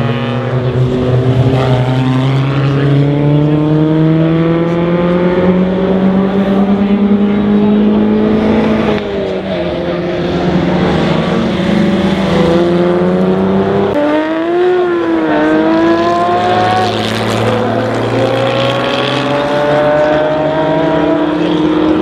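Historic sports-racing car engines at full throttle: the engine note climbs steadily for about nine seconds, drops at an upshift, and climbs again. Midway the pitch briefly wavers up and down before settling into another long climb as the cars accelerate away.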